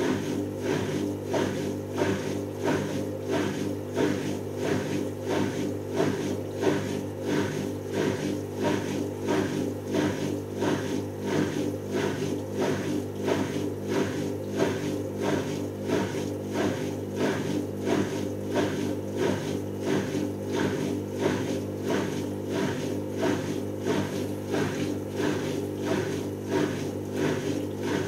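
Hoover Optima WMH148 front-loading washing machine running a spin-only cycle: the drum motor hums steadily while the drum turns, with a regular swish-and-knock about one and a half times a second.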